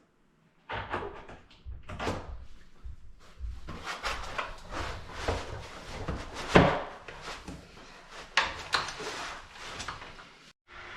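Printer parts and packaging being handled during unboxing: an irregular series of knocks, scrapes and rustles, with one sharper knock about two-thirds of the way through.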